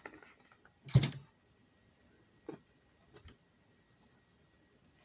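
Handling noises from a plastic tablet case and strap being fitted: a sharp knock about a second in, then a few lighter clicks.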